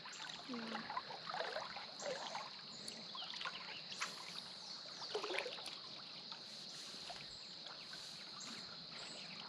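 Faint creek water trickling, with soft little splashes from wading, over a steady high-pitched hiss.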